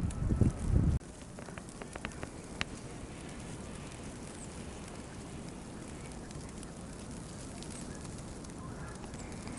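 Wind gusting on the microphone, cutting off suddenly about a second in, leaving a steady snowstorm hiss with a few light ticks.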